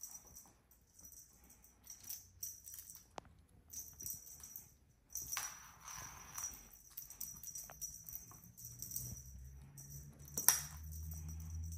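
Two Sphynx kittens playing with a feather wand toy: scattered light ticks and rattles as the lure and paws hit the floorboards and rugs, a rustling scuffle about five seconds in, and one sharp click near the end. A low hum comes in during the second half.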